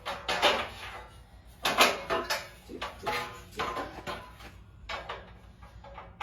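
Rummaging through plastic shopping bags: irregular rustling and crinkling as grocery items are handled and set down.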